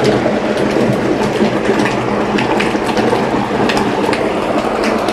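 Hot oil bubbling and crackling steadily in a commercial deep fryer with food frying in the vat, over a low steady hum.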